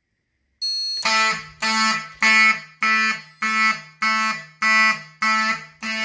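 Fire alarm horn on a panel's notification circuit sounding in slow march-time code: loud pitched blasts about one and a half times a second, each stepping down in pitch partway through. It starts about half a second in and is heavy enough to vibrate the wall it hangs on.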